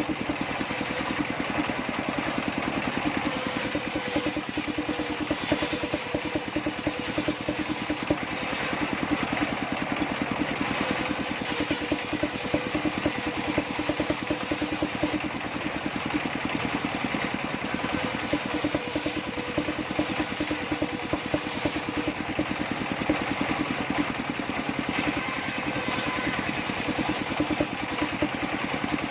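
Engine-driven circular saw table running steadily, with a fast, even engine pulse. A higher hiss swells and fades every few seconds.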